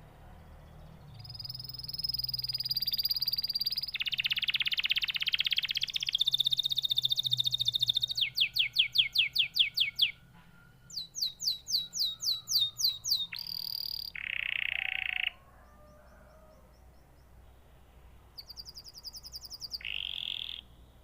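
Domestic canary singing: long phrases of fast, evenly repeated trill notes and buzzy rolls, high-pitched. The song breaks off for a few seconds and picks up again near the end.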